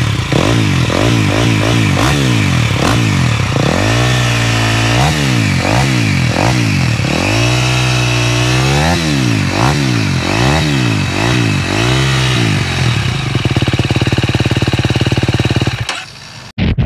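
KTM 250 SX-F single-cylinder four-stroke motocross engine being revved in repeated throttle blips, some quick and some longer and higher, then running steadily before cutting off near the end.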